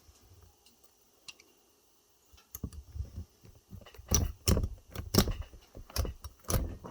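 Pliers working at an e-bike battery pack, metal clicking and clinking against the cells: a run of sharp clicks that starts about two and a half seconds in and gets louder after about four seconds.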